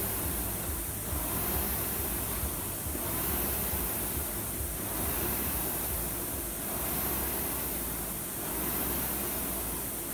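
Concept2 rowing machine's air-resistance flywheel whooshing, swelling with each drive stroke and fading on the recovery in an even rhythm of about one stroke every two seconds.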